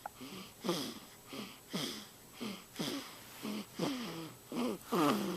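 Snoring: a quick, uneven run of short, wheezy snores, about two a second, each a pitched note that falls as it goes, with a breathy hiss over it. The loudest snore comes near the end.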